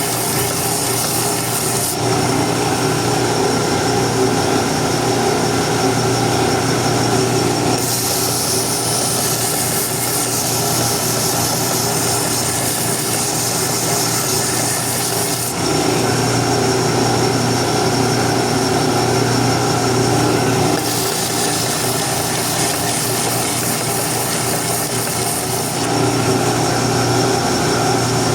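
Electric power tool running steadily while shaping wood, a constant motor hum under a rough working noise. The sound changes abruptly several times.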